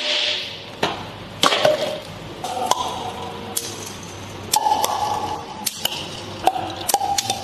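Glass beer bottles being opened one after another: a string of sharp clicks and knocks as the caps come off, several followed by brief glass ringing.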